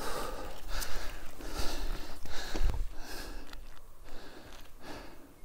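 A person breathing hard in short rhythmic puffs about twice a second, with wind rumbling on the microphone; it fades toward the end.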